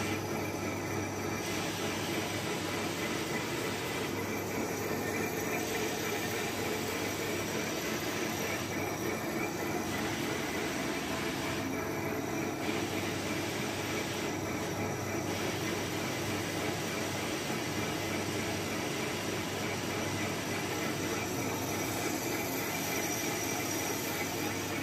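Large engine lathe running steadily while a carbide-insert boring bar cuts the inside of a big spinning steel ring: a continuous drone from the motor and gearing mixed with the hiss of the cut.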